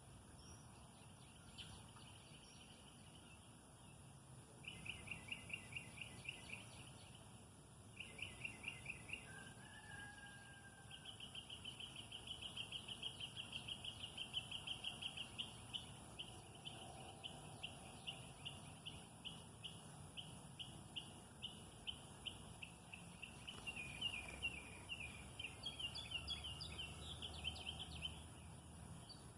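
Birds calling in a backyard: runs of quick, high chirps, about five a second, each run lasting a few seconds, the longest in the middle, over a faint low hum.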